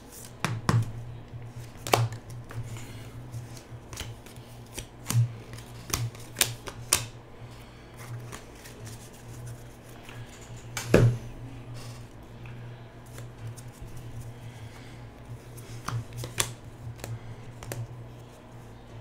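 Trading cards and a clear plastic card sleeve being handled on a tabletop: scattered clicks, taps and rustles as a card is slid into the sleeve and a stack of cards is picked up and leafed through, with one sharper knock about eleven seconds in. A steady low hum runs underneath.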